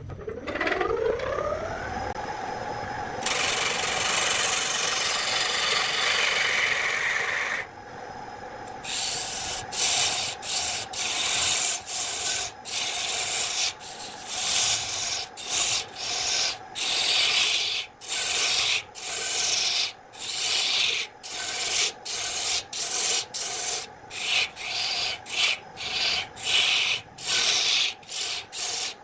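Electric wood lathe motor spinning up with a rising whine that settles into a steady hum. A hand-held turning gouge then cuts into the spinning wooden blank, first in one unbroken cut of about four seconds, then in many short cuts about one a second.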